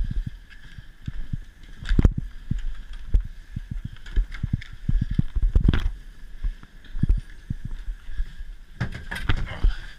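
Heavy ski-boot footsteps thumping on rubber floor matting, with knocks of ski gear against a gondola cabin as it is boarded, and a steady high hum underneath. A louder clattering burst comes near the end.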